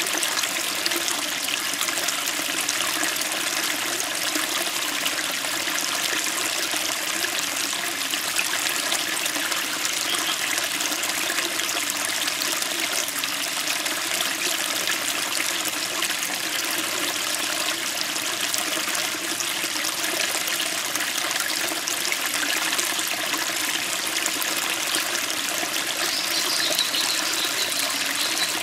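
Small stream running over stones, a steady rush of water splashing against the rocks.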